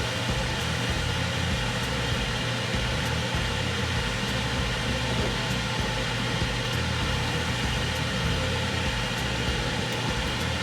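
A steady mechanical hum with an even hiss over it, unchanging throughout, with a few faint ticks.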